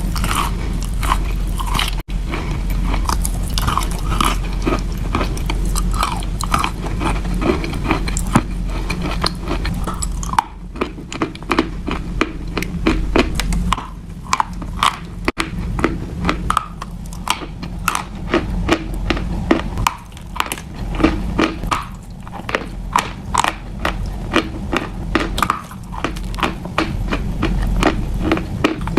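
Close-miked biting and chewing of wet chalk: dense, moist crunches several times a second, changing abruptly a few times as one eater's sound gives way to another's.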